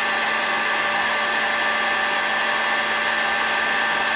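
Electric heat gun blowing steadily, its fan motor adding a constant whine over the rush of air, as it heats a model engine's case to loosen a piston pin.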